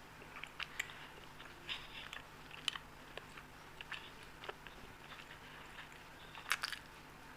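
Close-up chewing of soft Indian sweets: irregular wet mouth clicks and bites, with the loudest cluster near the end.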